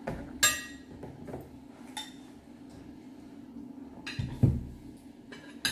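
Metal spoons and forks clinking against ceramic bowls and plates as people eat: a handful of separate clinks, with a duller knock a little after four seconds in.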